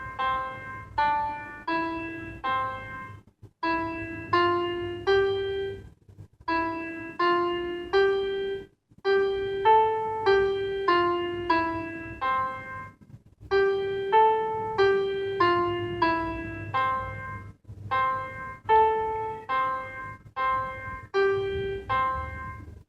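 A simple melody played in single piano notes, each struck and fading, about two a second, in short phrases with brief pauses between them.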